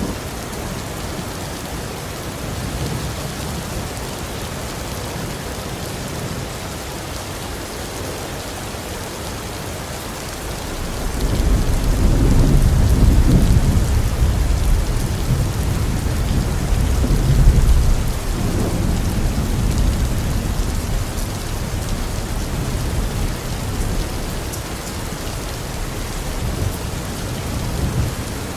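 Heavy rain falling steadily, with a long roll of thunder that swells about ten seconds in, peaks twice and rumbles away over roughly ten seconds.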